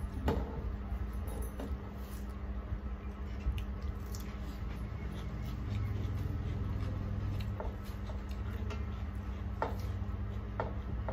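Hand-eating sounds: fingers squishing and mixing rice and curry on steel plates, with chewing and scattered small clicks and smacks, over a steady low hum.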